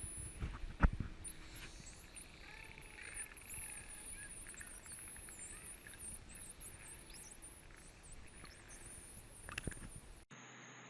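Common dolphin vocalizations: many high whistles gliding up and down over a hiss of background noise, with a sharp click about a second in and another near the end. The recording cuts off shortly before the end.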